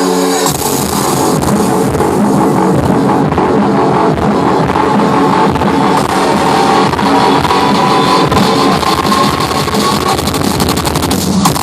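Loud electronic dance music played at a club concert: sustained tones give way about half a second in to a dense, distorted full-band drop, which breaks off briefly just before the end.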